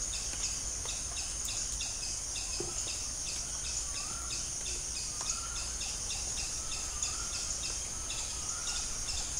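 Background chorus of insects: a steady high drone with a regular pulsing about three times a second. From about four seconds in, a bird calls with short chirps repeated roughly once a second.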